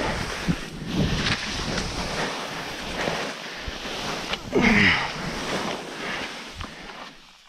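Skis scraping and sliding through soft spring snow on a steep descent, with wind rushing over the microphone. The scraping swells louder about a second in and again around halfway through.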